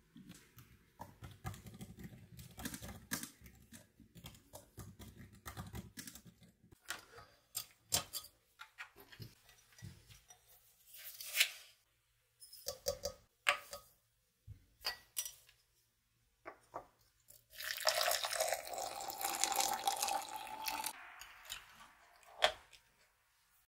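Laptop keyboard typing at first. Then scattered glass and utensil knocks as a glass French press is handled. From about 18 to 21 s there is a steady rush of hot water poured into the press over the coffee grounds, and one sharp clink follows a moment later.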